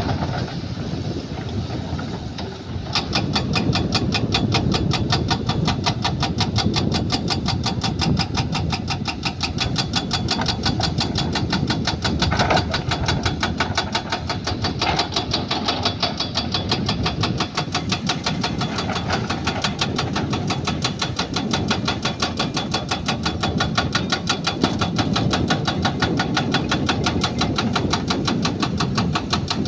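Heavy machine's engine running, with a fast, even clatter of sharp strokes that starts about three seconds in and keeps on steadily.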